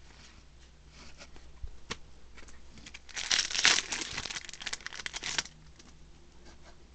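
A foil booster-pack wrapper crinkles loudly for about two seconds from about three seconds in, as the pack is torn open. Soft rustles and clicks of cards being handled come before and after.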